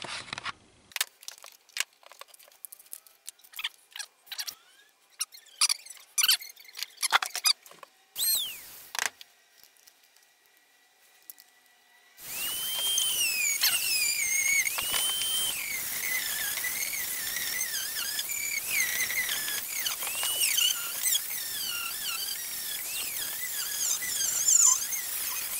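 Scattered sharp clicks and squeaks, then about halfway a high-pitched power tool starts cutting wood, whining and squealing with a pitch that rises and falls as it bites.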